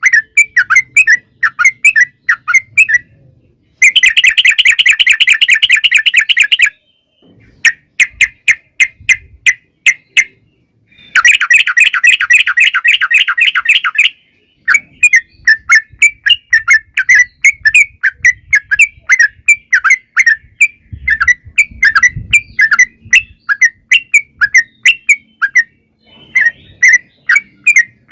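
Yellow-vented bulbul (trucukan) singing loudly: a run of quick chattering notes, twice broken by a long, fast rolling trill of about three seconds.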